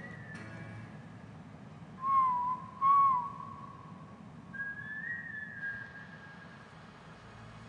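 A slow whistled tune from the film's soundtrack: two short, loud notes about two and three seconds in, then a longer, higher note that rises and falls.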